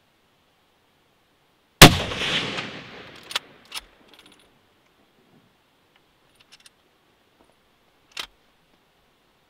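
A single hunting rifle shot about two seconds in, followed by a rolling echo that dies away over more than a second. Two short sharp clicks come soon after, and one more near the end.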